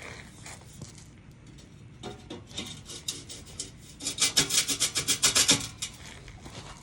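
Quick, rhythmic rasping strokes of metal on metal, about seven a second and loudest in the second half, from work fitting an exhaust tip onto a pickup's tailpipe.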